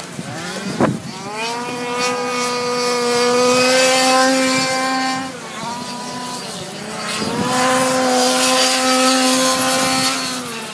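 Small high-revving two-stroke gas engine of a 1/5-scale radio-controlled 4x4 race car. It rises in pitch as the car accelerates and holds a high, steady note at full throttle, drops off about five seconds in, then climbs and holds again from about seven seconds before easing off near the end.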